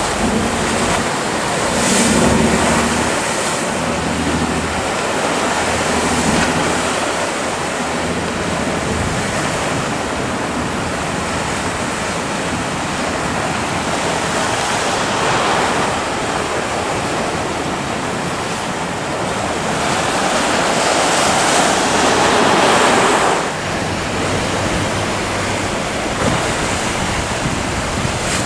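Rough sea surf breaking and churning in a harbour entrance, with wind buffeting the microphone; the surf swells louder a couple of seconds in and again for a few seconds around twenty seconds in, then drops away suddenly. A low motor-boat engine drone runs faintly underneath at the start and near the end.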